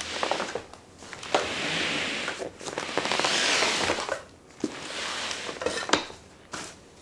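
Rustling of bags and packaging as items are unpacked from luggage, in several swells about a second long with light clicks and knocks between them.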